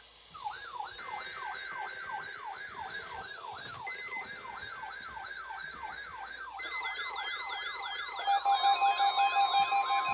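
Electronic siren yelping, its pitch sweeping up and down rapidly about three times a second, with a fainter higher siren sweeping alongside. Near the end, steady electronic tones and a pulsing beat join in.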